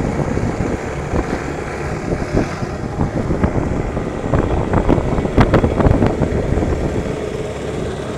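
Small boat's outboard motor running steadily, with a few sharp knocks about four to six seconds in.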